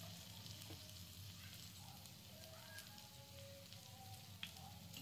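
Faint, steady sizzling of dosa batter and melted butter on a hot dosa pan, with a light tap near the end.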